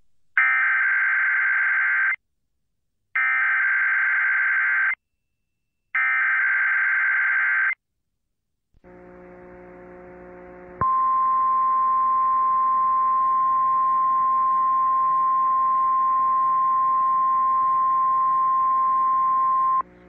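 Emergency Alert System activation on an FM radio broadcast: three identical two-second bursts of screechy digital SAME header data, a short stretch of faint hiss, then a steady single-pitch 1050 Hz attention tone held for about nine seconds. The activation announces a Dust Storm Warning.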